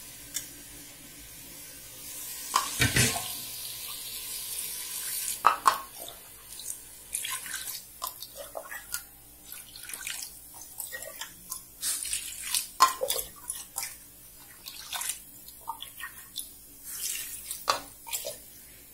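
Water poured by the cupful into a clay pot of chicken curry, in repeated short pours that splash into the liquid.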